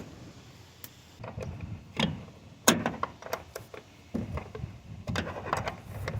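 Irregular knocks and clanks of hands and tools working on a van's body panels, about a dozen sharp strikes at uneven spacing, the loudest about two and a half seconds in.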